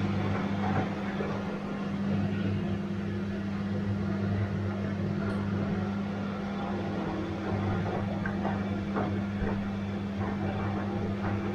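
Bosch washing machine running with a steady hum, a few faint clicks and knocks coming through in the second half.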